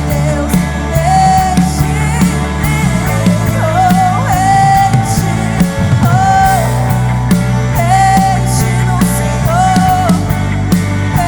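Live band playing a worship song: steady bass and evenly repeating drum hits under a melody of long held notes that slide from one pitch to the next.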